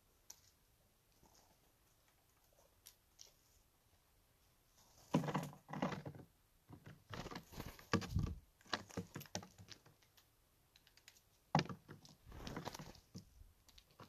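Steller's jays landing among peanuts in the shell and pecking at and picking them up: bursts of sharp taps, knocks and clattering shells, starting about five seconds in and coming in clusters.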